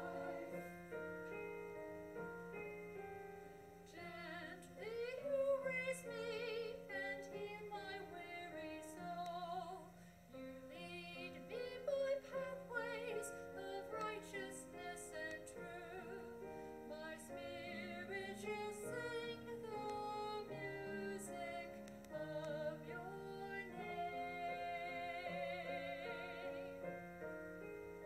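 Church choir anthem with piano accompaniment: sustained piano chords, joined about four seconds in by a sung verse with vibrato.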